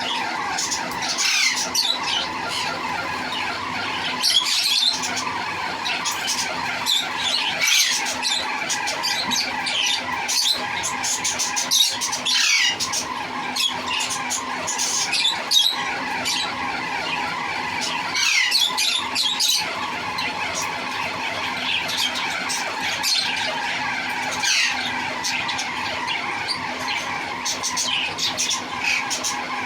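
Pet parrot squawking and chirping repeatedly: many short, shrill calls that sweep downward in pitch, over a steady background hum.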